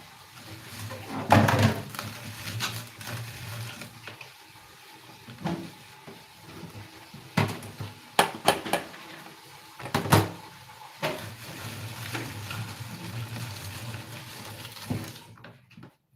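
Kitchen clatter: pots and utensils knocked and handled in a few sharp knocks, over a steady low hum and hiss that stops suddenly near the end.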